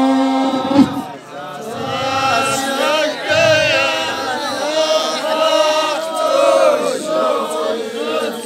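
Group of men chanting together in the Amazigh ahwach style, many voices overlapping on long held notes that bend up and down.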